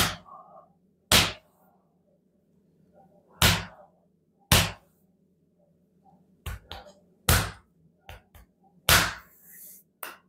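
Sharp slaps of a hand striking a man's bare back during manual therapy, about eleven blows at irregular intervals, some coming in quick clusters.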